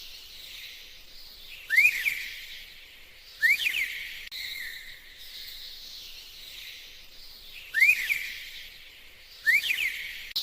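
Bird calls: short, sharply rising whistled chirps come in pairs about a second and a half apart, twice, over a steady high chirring background.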